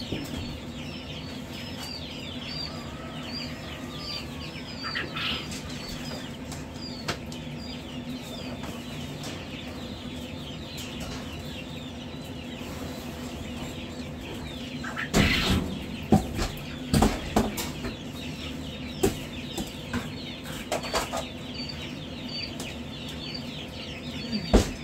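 Dense, continuous peeping of many quail and other poultry chicks in stacked brooders over a steady low hum. About fifteen seconds in, a run of loud knocks and rattles comes from the metal brooder being handled, with a few more knocks later.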